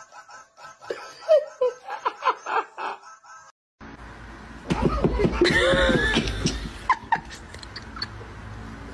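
People laughing: soft snickering in the first few seconds, then a louder run of laughter from about five seconds in.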